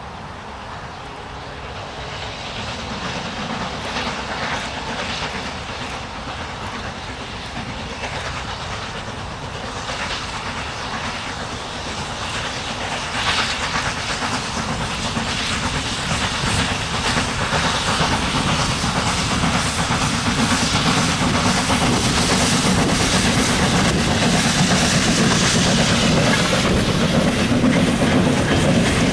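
Steam locomotive hauling a long train of mineral wagons, growing steadily louder as it approaches. In the later part the wagons rumble and clatter past close by.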